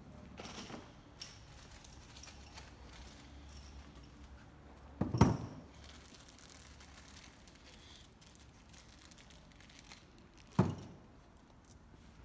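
Small metal mounting hardware jingling and rustling in a plastic bag as it is handled, with light clicks throughout. Two loud, sharp knocks come about five seconds in and again about ten and a half seconds in.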